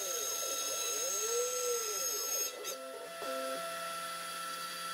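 Shop-built KRMx02 CNC router milling a circular magnet pocket: a steady high spindle whine, with the axis motors' tone rising and falling about every two seconds as the cutter circles the pocket, breaking off briefly around three seconds in.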